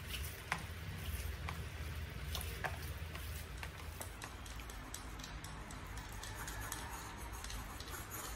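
Scattered light clicks and soft taps from hands kneading and pressing a shredded fish-cake mixture in a plastic container, over a steady low hum.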